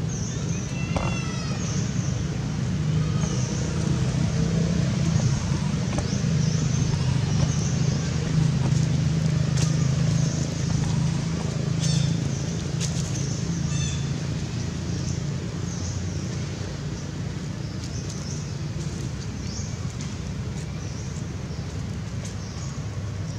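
A low, steady engine-like hum that swells through the middle and then eases off. Short high chirps come and go over it, with a brief descending chirping call about a second in.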